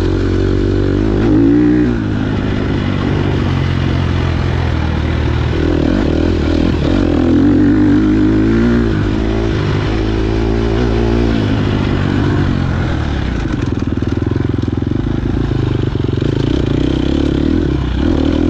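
KTM 250 XC-F dirt bike's four-stroke single-cylinder engine racing off-road, its revs rising and falling repeatedly under throttle, then holding steadier in the last few seconds.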